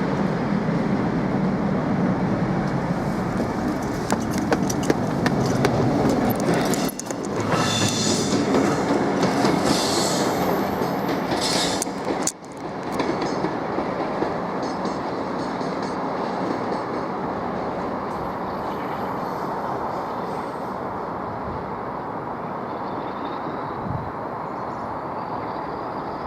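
A train passing close by on the line: a continuous rumble of wheels on rail, with a rapid clatter of wheel clicks over rail joints through the middle, a brief sharp drop about halfway, then a steadier rumble that slowly eases.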